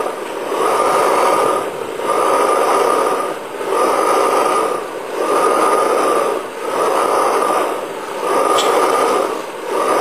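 Hornsby 2 hp hot bulb engine being turned over by hand, a breathy whoosh with each slow turn, repeating about every second and a half.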